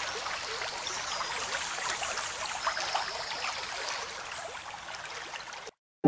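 Rain falling on open water, a steady hiss of countless small drops splashing on the surface; it cuts off suddenly just before the end.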